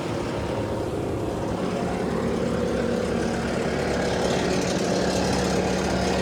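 Bobcat T740 compact track loader's diesel engine idling steadily, a low even hum that grows a little stronger about halfway through.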